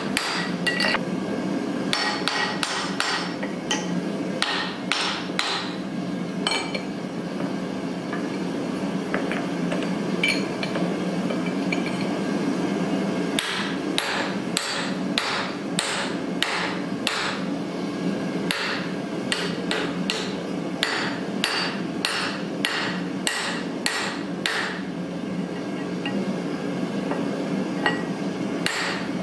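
Hammer blows on a steel punch held on a red-hot 1045 steel block on the anvil, driving the eye of a hammer head. Sharp metallic strikes with a short ring come in short groups, pause for several seconds, then run on at about two to three blows a second. A steady low hum sits underneath.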